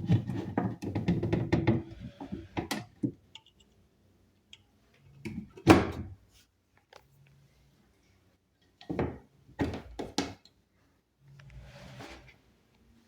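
Wooden knocks and thunks from handling an antique Singer sewing machine's wooden cabinet: a quick clatter of knocks at first, one heavy thunk about six seconds in, then three sharper knocks around ten seconds.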